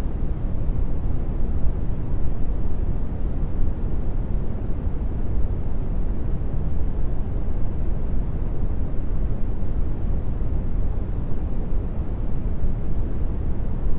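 Brown noise: a steady, even low rumble with most of its weight in the bass and little treble, unchanging throughout.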